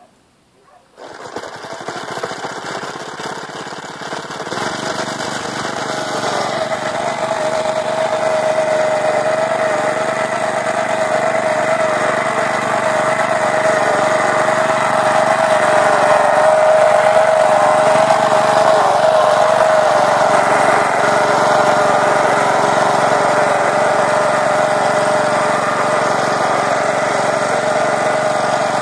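Motor of a homemade vertical-tine cultivator starting up suddenly about a second in and running steadily. It gets louder a few seconds later as the tines bite into wet soil, and from about six seconds in a steady whine rides over the noise.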